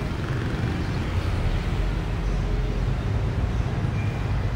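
Steady low rumble of a moving double-decker tour bus and the street traffic around it, heard from the bus's open top deck.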